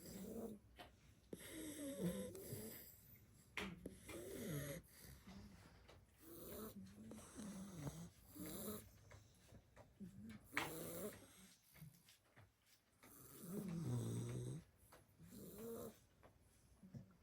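Sleeping blue Staffordshire bull terrier puppies snoring, with short wavering snores coming unevenly every second or two. Two brief sharp sounds cut in, about four and eleven seconds in.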